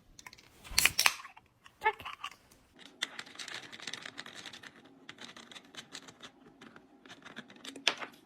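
A parrot's beak scratching, clicking and picking at a wine bottle's cork and foil: irregular small clicks and scratches, with sharper snaps about a second in, around two seconds and near the end, and one short pitched squeak about two seconds in.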